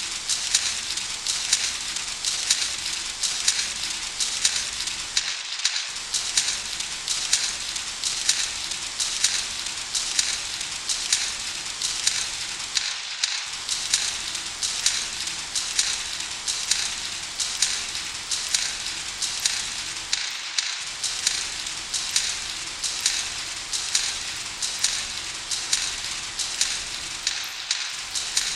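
Background music: a dense, hissy loop with a steady ticking beat and little bass. Its low end drops out briefly about every seven and a half seconds.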